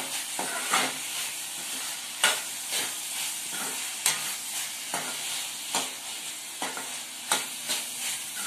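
Chicken keema frying and sizzling in a metal kadhai on a high gas flame as a spatula stirs it. Sharp clicks and scrapes of the spatula against the pan come every second or so over a steady sizzle.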